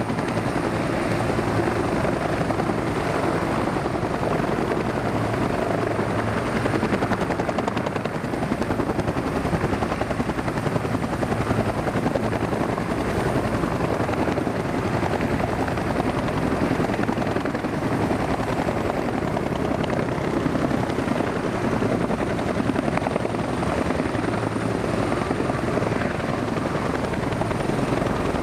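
Japan Ground Self-Defense Force helicopters running, a steady, loud rotor chop with turbine noise that holds at an even level without let-up.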